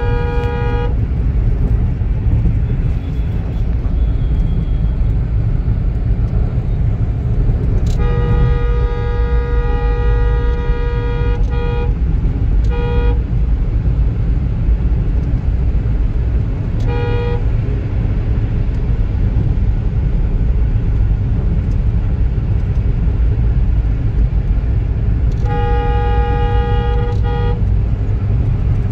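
Steady road and engine rumble heard inside a moving car's cabin, with a vehicle horn sounding several times: a short toot at the start, a long blast of about three and a half seconds about eight seconds in, short toots after it, and another long blast near the end.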